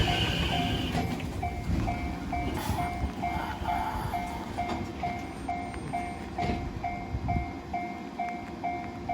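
Japanese railway level crossing warning bell ringing, a steady electronic ding about twice a second, over the low rumble of a train that slowly fades.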